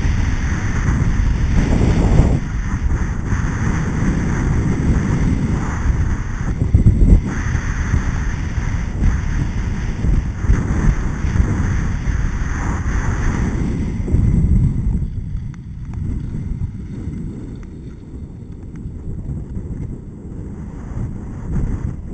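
Wind rushing over the microphone of a head-mounted action camera while skiing downhill, with the skis hissing and scraping over the snow. It gets quieter about fourteen seconds in.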